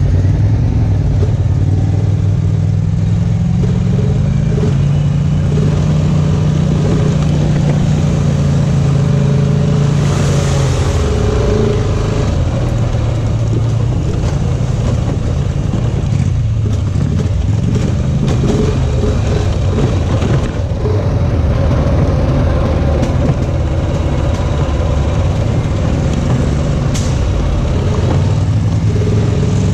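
Off-road vehicle engine running on the trail under changing throttle, its pitch stepping up and down as it revs and eases off. A brief hiss comes about ten seconds in.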